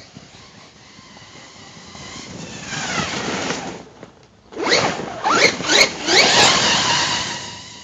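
Brushless electric motor of a Hobao Hyper ST Pro 1/8-scale RC stadium truck whining with the throttle as it drives. A falling whine comes about three seconds in, then a brief lull, then several quick rising whines, the loudest part, as it accelerates hard.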